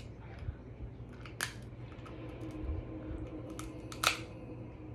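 Sharp cracks and clicks of Dungeness crab shell being broken apart close to the microphone, with the loudest snap about four seconds in.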